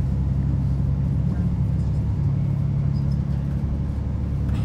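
Inside a Chiltern Railways diesel multiple unit running at speed: the steady low drone of the underfloor diesel engine over the rumble of wheels on the track.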